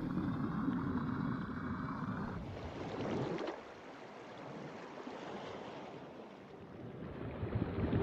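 Rushing sea water noise, even and without any tone. It is louder for about the first three and a half seconds, with a few sharp splashy knocks near the three-second mark, then drops to a softer wash and swells again near the end.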